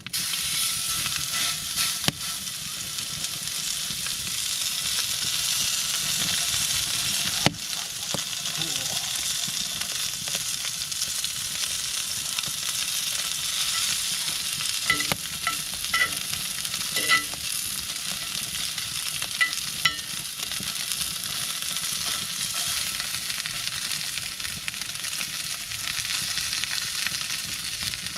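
Steak sizzling steadily as it sears over a wood fire, a dense hiss with a few sharp pops of spitting fat.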